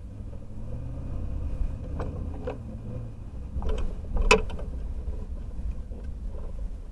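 A vehicle's engine running as a low, steady rumble, with several sharp clicks and knocks; the loudest knock comes a little over four seconds in.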